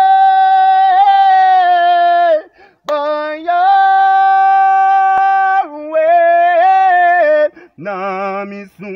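A single voice singing unaccompanied, holding long, steady high notes in a few phrases with short breaks between them; the last phrase near the end wavers.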